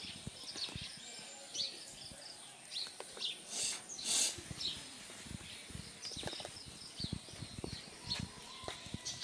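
Small birds chirping repeatedly, short high chirps scattered throughout, over quiet outdoor background with soft scattered knocks. Two short noisy bursts come about three and a half to four seconds in.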